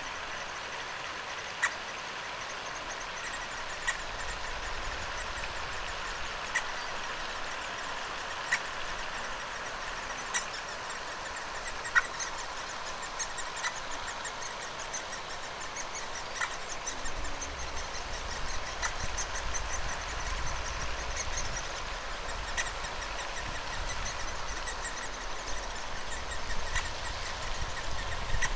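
Great spotted woodpecker nestlings begging faintly from inside the tree-hole nest, a quick run of high chirps while the parent is at the hole. Sharp single clicks come every two to three seconds, and a low rumble comes in about halfway.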